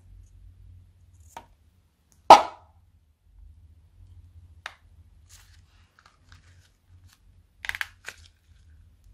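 Scissors cutting the rubber of a foam-filled balloon, with one sharp snap about two seconds in, then foam squeezed out of the cut with a short crackling squirt near the end.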